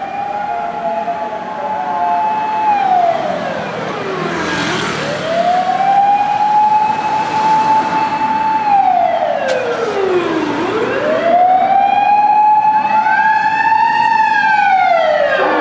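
Fire-rescue truck's motor siren wailing, rising and falling in long slow cycles about every six seconds. A second, higher siren overlaps it near the end.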